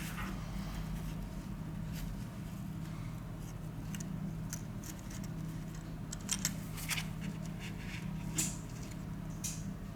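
Small repair tools clicking and ticking against a phone in scattered light taps, busiest in the second half, over a steady low hum.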